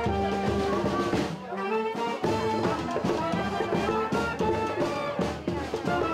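Brass band music: horns playing a melody over drums, the bass end dropping out briefly about a second and a half in.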